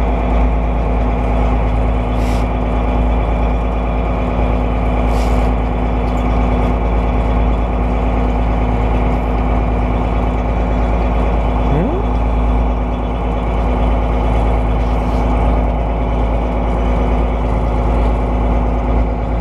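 A fishing boat's engine running steadily at a constant low hum, with a brief rising squeak about twelve seconds in.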